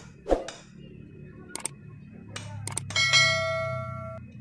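Steel hammer striking a hand impact driver to tighten the bolts of the bearing plate in a Kawasaki HD3 crankcase: several sharp metal-on-metal knocks, the loudest just after the start, and one about three seconds in that rings on for about a second.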